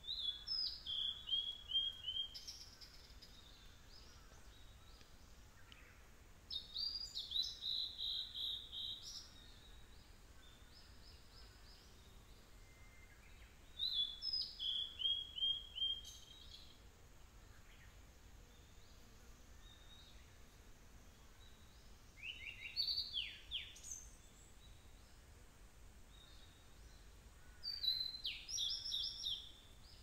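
Male blue-and-white flycatcher singing: five separate song phrases, each a run of quick high notes lasting about two seconds, with pauses of several seconds between them.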